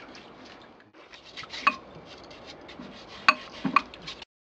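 Washing up in a stainless steel sink: a dish brush scrubbing a pot, with ringing metal clinks of the pot against the sink, one a little before two seconds in and two more near the end. The sound cuts off suddenly just before the end.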